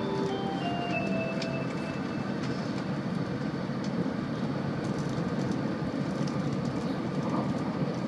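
Tokaido Shinkansen train running at speed, heard from inside the passenger cabin as a steady rumbling rush. The last notes of the onboard chime melody, a short descending tune, fade out in the first second and a half.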